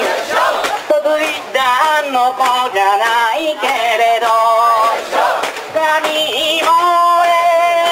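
A song with a melodic sung vocal line and held notes.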